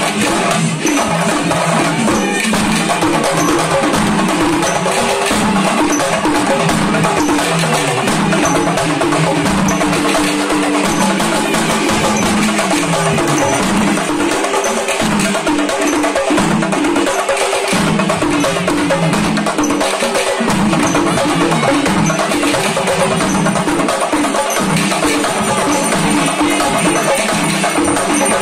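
Kerala temple-festival percussion for a kavadi procession: drums beaten in a fast, driving rhythm with metal cymbals ringing, loud and unbroken.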